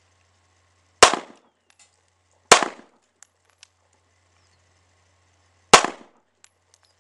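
Springfield Armory XD pistol fired three times: two shots about a second and a half apart, then a third about three seconds later, a two-to-the-chest, one-to-the-head drill.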